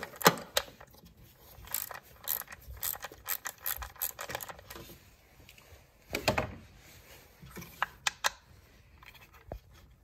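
Quarter-inch drive ratchet with a 7 mm socket clicking in short runs as it backs out the small screws holding a MAP sensor, with scattered light metal clicks and a louder knock about six seconds in.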